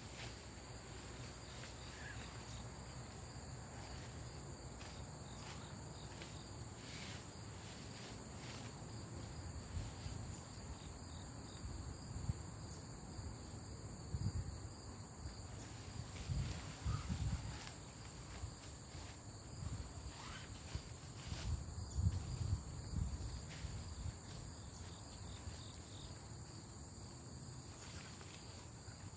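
Steady high-pitched insect chorus, with irregular low rustling and bumping through the middle as the tarp and rope are handled.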